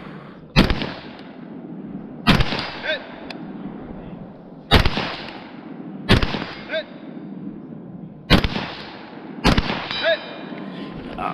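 M4-clone rifle firing six single shots at a deliberate pace, one to two seconds apart. Three of the shots are followed about half a second later by the short ring of a distant steel target being hit.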